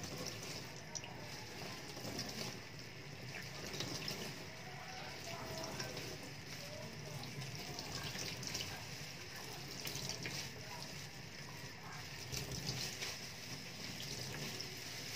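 Tap water running into a stainless-steel sink and splashing as gloved hands rinse and squeeze ink-soaked pads under the stream.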